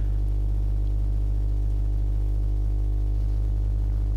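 Steady electrical mains hum picked up by the recording, with a buzzy stack of overtones and no change in level.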